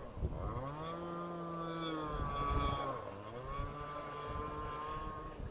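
Toy speedboat's motor running. Its pitch rises as the throttle opens about half a second in, holds, dips about three seconds in, then climbs again and holds.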